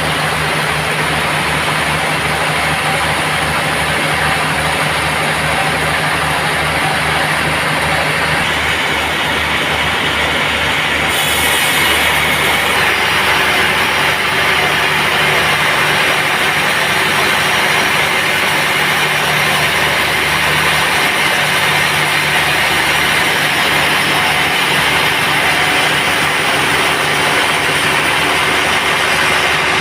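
Band sawmill running steadily with a low, pulsing engine-like rumble. About eleven seconds in, the sound grows brighter and a little louder and then holds steady.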